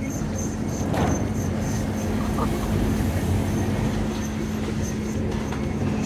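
Sawmill log debarker and its infeed conveyor running: a steady industrial drone and rumble with a constant low hum, and a sharper clatter about a second in.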